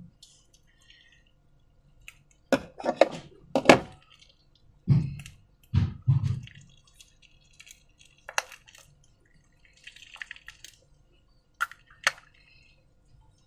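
Wet, sticky slime being handled: a cluster of sharp squelching slaps, then a few deeper plops, and a couple of light sticky clicks later on.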